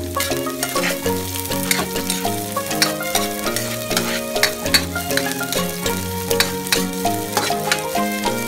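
Aromatics sizzling in a steel wok as a metal ladle stirs and scrapes them, with irregular clicks of the ladle on the pan. Background music with a melody and bass line plays throughout.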